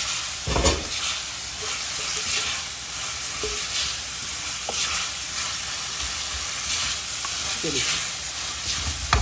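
Soaked moong dal frying in a pan, sizzling steadily while a spatula stirs and scrapes it round; the dal is being roasted dry in its masala with no water added. A sharp knock about half a second in.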